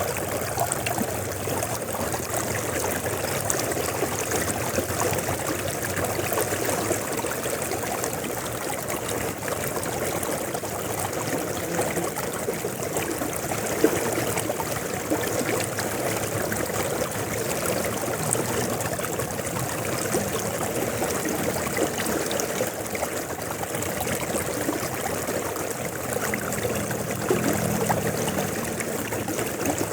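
River water flowing steadily, a continuous rushing and babbling of the current.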